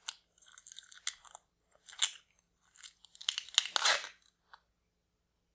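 Plastic wrapping crinkling as it is pulled off a display stand, in irregular crackling bursts, loudest around three to four seconds in.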